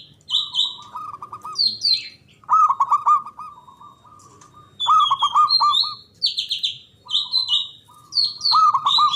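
Zebra dove (perkutut) cooing: repeated phrases of quick, rolling coos, one every second or two. Another bird's short, high chirps fall between and over the coos.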